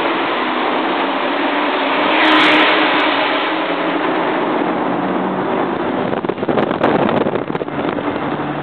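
Ford Mustang V8 engines and exhausts running loudly inside a road tunnel, mixed with a steady rush of road and wind noise. A louder rush of noise swells about two seconds in, and the sound turns rougher and more broken about six seconds in.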